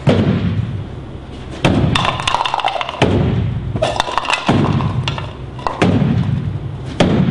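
Dull thumps of hands striking the sides of a smoke-filled cardboard box vortex cannon, about six blows roughly a second and a half apart, each one pushing a vortex ring of air out of the hole in the front.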